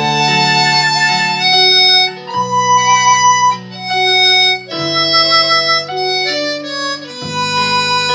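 Harmonica played into a handheld microphone, a slow melody of held notes changing about once a second.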